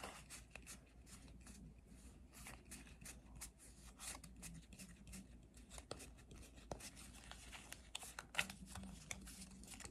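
Faint soft ticks and rustles of Pokémon trading cards being thumbed through one by one in the hands.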